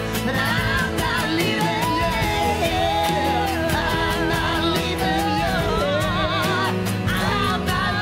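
Live band playing a slow ballad (acoustic guitar, upright bass, drums and piano), with a woman singing a melody with wide vibrato over it.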